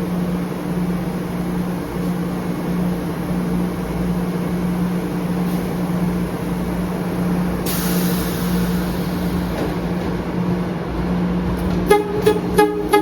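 An MBTA Blue Line subway train's horn sounds four quick short toots near the end, over a steady low hum. A hiss of air comes in about eight seconds in and fades out.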